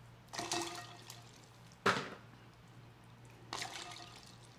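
Water dripping and splashing into a bowl of water from a cooked lobster tail being worked by hand, in three brief wet splashes, the sharpest about two seconds in.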